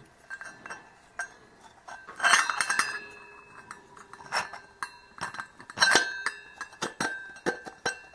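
A hammer lightly tapping metal water pump parts on a 1976 OMC stringer outdrive: about half a dozen sharp metallic clinks at uneven intervals, each ringing briefly, with fainter clicks of parts being handled between them.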